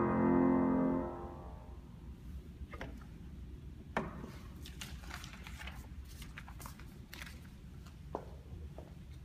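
Grand piano's final chord ringing and dying away about a second in, followed by a quiet room with a few faint clicks and knocks, the loudest about four seconds in.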